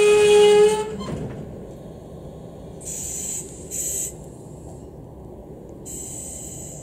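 Electric locomotive's horn holding one long steady note that cuts off about a second in. After it there is a low steady rumble with three short hisses.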